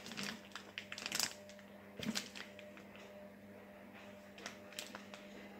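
Small clear plastic bead bag crinkling as it is handled in the fingers: short crackles, busiest in the first two seconds, then a few scattered ones later.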